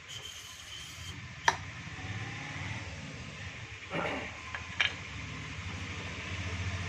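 Parts of a submersible pump being assembled on the pump shaft: a sharp click about a second and a half in as a pump stage drops onto the stack, then two lighter knocks near four and five seconds. A low hum runs underneath and grows louder near the end.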